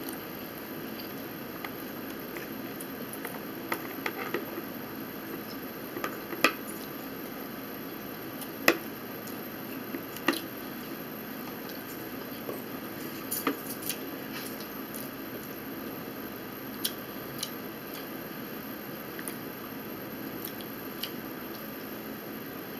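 Metal forks clicking and scraping against plastic bowls, about a dozen sharp separate clicks scattered through, with wet chewing of chicken wings over a steady room hiss.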